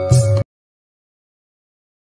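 Background instrumental music with sustained notes over a low beat, cut off abruptly about half a second in, followed by dead silence.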